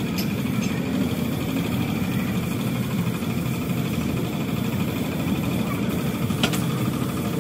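An engine running steadily, with a single sharp click near the end.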